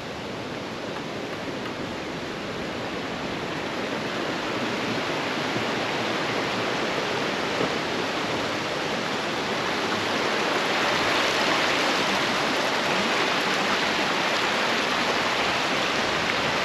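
Mountain stream rushing: a steady hiss of running water that grows louder over the first ten seconds or so, then holds.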